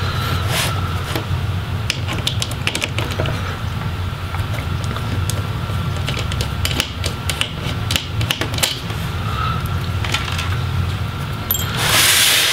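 Light clicks and taps of hands handling a laptop's plastic bottom case, over a steady low hum. Near the end there is a short rush of rubbing as the laptop is slid and turned on the table.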